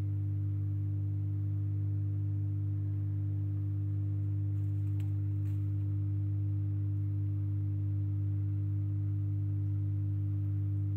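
Steady low electrical hum of aquarium equipment, one unchanging drone with a couple of higher overtones. Two faint ticks about five seconds in.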